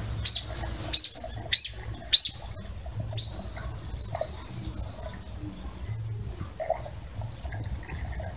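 Bird calls: four loud, sharp calls, each sweeping down in pitch, in the first two and a half seconds, then softer calls, over a steady low hum.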